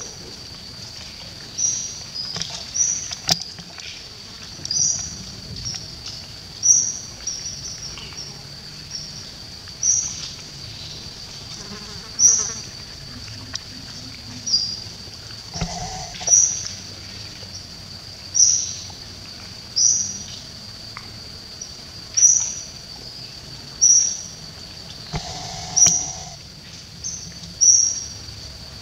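Steady high-pitched insect drone, with short, sharp high chirps repeating about every one to two seconds over it.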